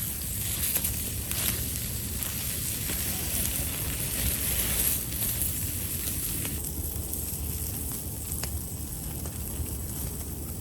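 Campfire crackling, with a few faint sharp pops, over a steady low rumble and a steady high hiss.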